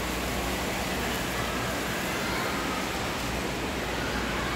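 Loud, steady din of an indoor waterpark hall: water noise and the hubbub of a pool full of swimmers, echoing together into one even wash.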